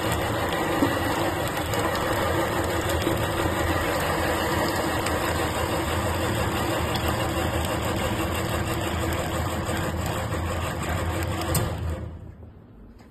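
Electric stainless-steel commercial meat grinder running steadily as it grinds meat, a constant motor hum under a dense grinding noise. The sound falls away sharply near the end.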